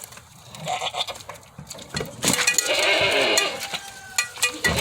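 Goats bleating, one long loud bleat about two seconds in after a softer one: hungry goats waiting to be fed. A light clatter comes near the end.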